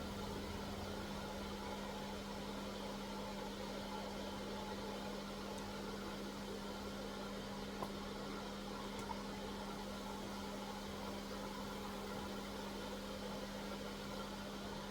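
A steady low electrical hum over a soft hiss, typical of a running kitchen appliance or fan, with two faint clicks about halfway through.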